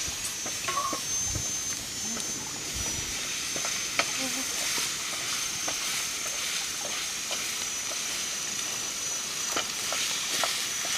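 Food frying in a pan over a wood fire with a steady sizzle, stirred with a wooden spatula that scrapes and taps against the pan every so often.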